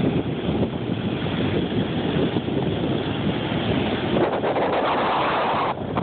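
Rough ocean surf breaking and washing up a sandy beach, with wind buffeting the phone's microphone. The rush grows louder and brighter about four seconds in and drops off suddenly shortly before the end.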